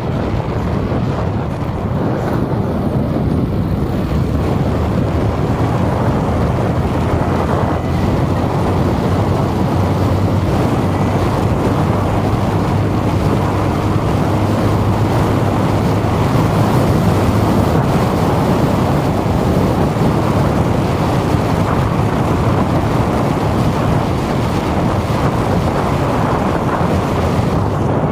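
Steady low rumbling noise of wind on the microphone mixed with street traffic.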